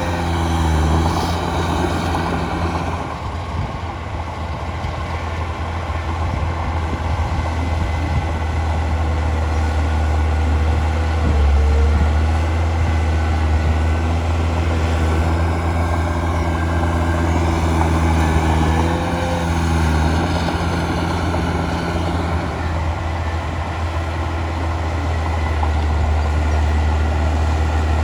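Heavy diesel engine of earthmoving machinery running steadily under work, with a deep hum whose pitch rises and falls slightly a few times.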